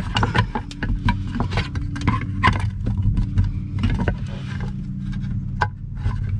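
Plastic trim cover around a rearview mirror stem being pressed back up into place by hand: scattered plastic clicks and scrapes over a steady low hum.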